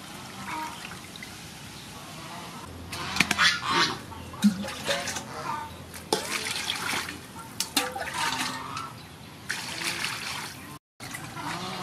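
Water poured from a metal bowl and splashing into an aluminium basin as whole fish are rinsed and rubbed by hand, in several separate splashing bursts.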